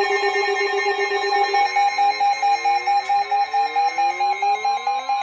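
Electronic alert alarm: a rapid pulsing tone at two pitches, joined about a second and a half in by a tone that sweeps upward again and again.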